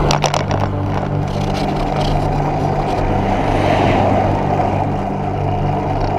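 Wind buffeting the microphone of a camera mounted on a moving road bike, with tyre and road noise, a steady low hum underneath and a few sharp clicks near the start.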